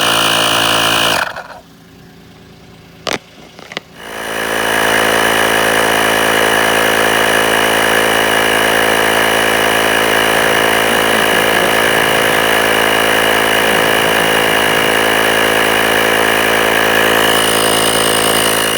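12-volt portable electric air compressor (tyre inflator) pumping up a car tyre, running steadily with a high whine. It stops about a second in, a couple of clicks follow, and at about four seconds it starts again and runs steadily to the end.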